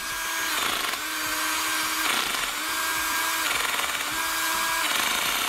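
Ryobi R18SDS 18 V cordless SDS hammer drill running with no load in its hammer-with-rotate setting. Its motor whine rises and falls in pitch about three or four times as the speed is varied.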